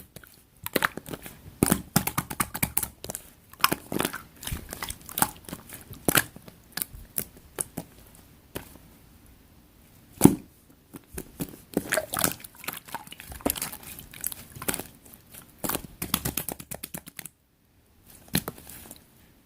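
Light purple clay slime being squeezed and pressed by hand, making rapid runs of wet clicks and crackles as trapped air pops, with one louder pop about halfway through. The handling stops near the end after one last short squish.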